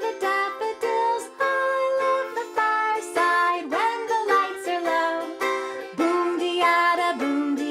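Banjo ukulele strummed steadily, playing the chords of a sing-along song with several strums a second.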